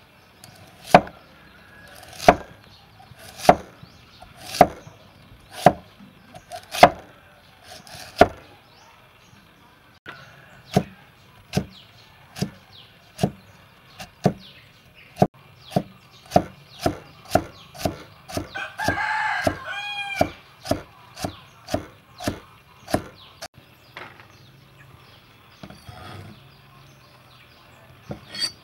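A cleaver chops through a carrot onto a wooden chopping block, at first in single strokes about a second apart and then in quicker cuts about twice a second as it is sliced into strips. About two-thirds of the way through, a rooster crows once.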